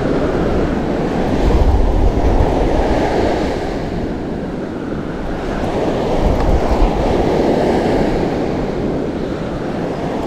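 Surf washing on a beach, with wind rumbling on the microphone and gusting harder about a second and a half in and again around six seconds.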